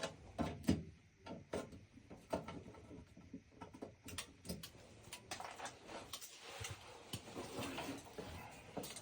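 Scattered light clicks and taps at uneven intervals, with no motor running: the furnace's inducer motor fails to start on the call for heat.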